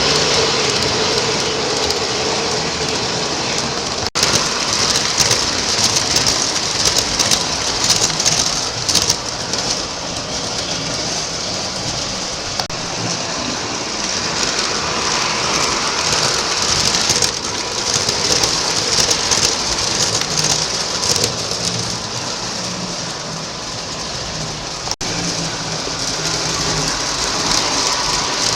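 Lionel O-gauge model subway train running on three-rail track: a steady rolling hiss and rumble of wheels on rail, broken twice by a brief dropout.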